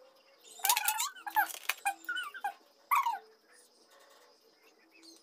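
A dog whining and yelping in about four short, high-pitched calls that fall in pitch, all within the first three seconds or so.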